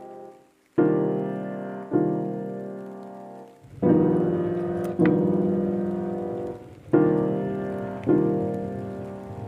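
Background piano music: slow sustained chords struck about once every one to two seconds, each left to ring and fade.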